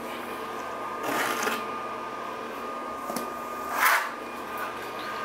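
Trowel scraping modified thinset mortar into the Ditra uncoupling membrane to key it in: two long scrapes, about a second in and near four seconds, the second the louder, over a steady faint hum.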